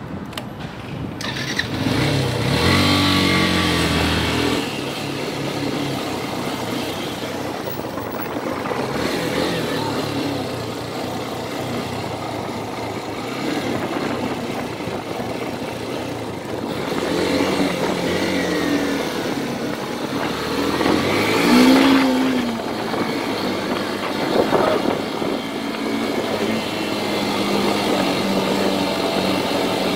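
Motorcycle engine heard from the rider's seat. It comes up sharply about a second in, rises in pitch in steps as the bike pulls away through the gears, then runs steadily under road and wind noise. Its pitch climbs again as it accelerates, loudest about two-thirds through.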